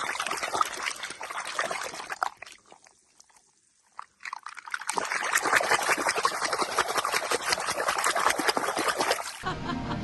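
Water pouring and splashing in two spells with a brief pause between them, cutting off suddenly near the end.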